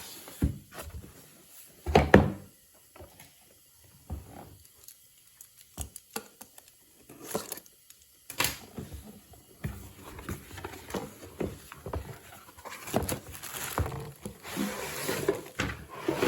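Irregular knocks, thumps and clatter of objects being handled in a small room, the loudest thump about two seconds in, with a stretch of rustling near the end.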